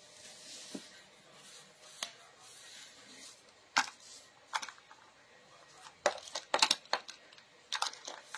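Small hard objects being handled on a desk: a scattering of sharp clicks and light knocks, with a quick run of them about six to seven seconds in.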